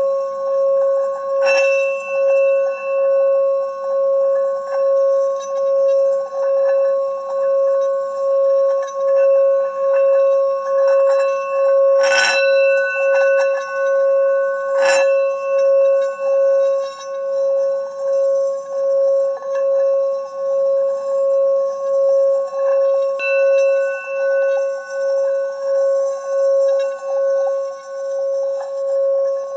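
A steady bell-like ringing tone that swells and fades in regular pulses, with a few sharp clicks, the loudest about twelve seconds in.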